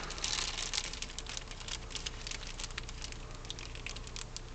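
Clear plastic bag crinkling and rustling in a hand as a waxworm is fished out of it: a dense, uneven run of small crackles.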